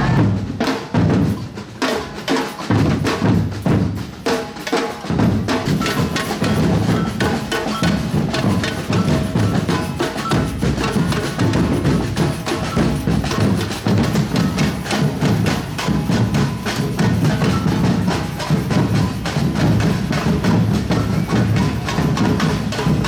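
Batucada drum ensemble playing a rhythm on deep bass drums, snares and a clacking block-like percussion. The strokes are sparse and broken at first, and the full ensemble groove comes in about five seconds in.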